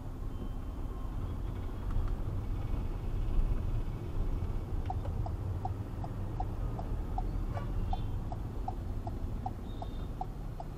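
Low rumble of a car driving on a city road, heard from inside the cabin. About halfway through, a regular ticking starts, about four ticks a second.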